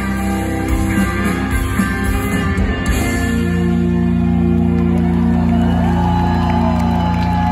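Live rock band with electric guitars and drums, heard from the audience in a large hall. About three seconds in the drums stop and the band lets a long chord ring out to close the song.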